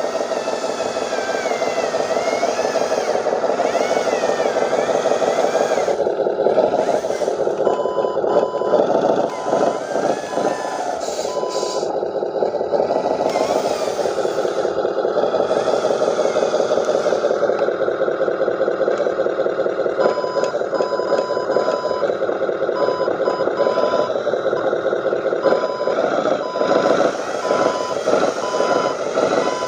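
Remote-control dump truck running with a steady, wavering drone. A reversing beeper sounds about twice a second for a few seconds starting about eight seconds in, then again from about twenty seconds on, as the truck backs up.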